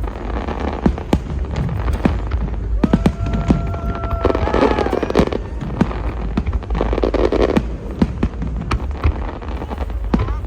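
Fireworks display bursting in an irregular string of sharp bangs, with a held whistling tone about three seconds in that dips at its end.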